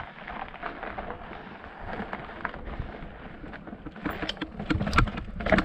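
A fatbike rattling and knocking over rough rocky trail, with irregular sharp knocks over a low rumble; the knocks come thicker and louder in the last second and a half.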